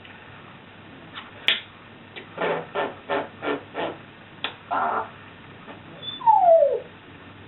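African grey parrot calling: a sharp click, then a run of short pitched calls at about three a second, and near the end a loud whistle sliding down in pitch.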